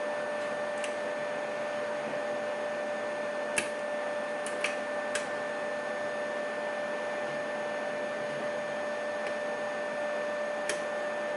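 3D printer running steadily with a constant whine from its motors. A handful of short, sharp clicks sound from the lock as it is worked with a pick.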